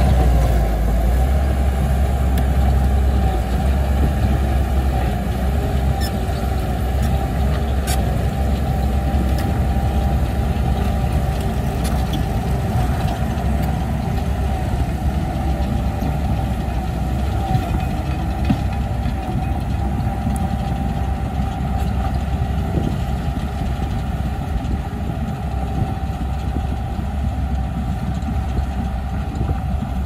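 Bulldozer's diesel engine running steadily, with a few sharp clicks.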